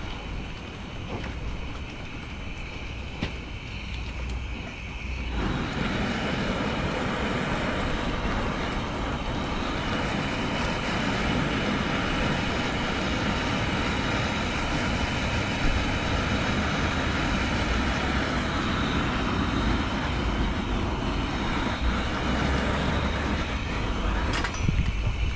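Gas ring burner under a lead-melting pot, burning with a steady rushing noise. About five seconds in it becomes suddenly louder and fuller as the pot is lifted off the open flame. Near the end it drops back, with a knock as the steel pot is set down on the burner.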